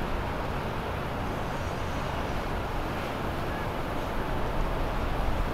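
The engines of an Azimut Atlantis 48 motor yacht running steadily at low speed, a constant low drone.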